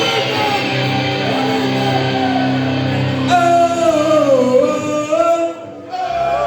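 Live punk rock band playing, amplified and echoing in a hall: a held chord for about three seconds, then a loud sung melody line over the band.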